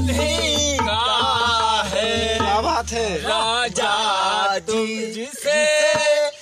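Men singing a folk Holi song with music, a low hum under it that stops about five seconds in.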